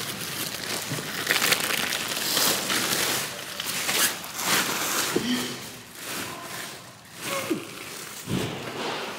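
Post office bags and packed orders rustling and crinkling as they are handled and moved, with a couple of short squeaks partway through.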